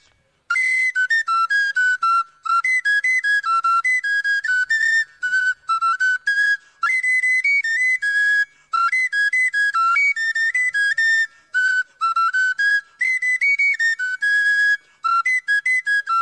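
Intro music: an unaccompanied tune on a high-pitched wind instrument such as a whistle, quick stepping notes in short phrases with brief breaks, starting about half a second in.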